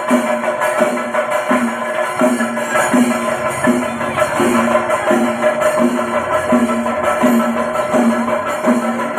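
Music with percussion and a steady beat: a short low note repeats about every three-quarters of a second over a held tone.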